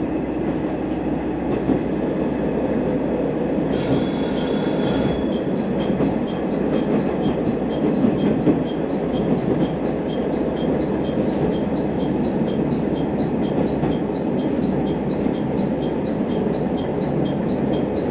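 Sanriku Railway diesel railcar running, heard from inside the car, with a brief high-pitched wheel squeal about four seconds in. After that a steady high ticking repeats about two to three times a second over the running noise.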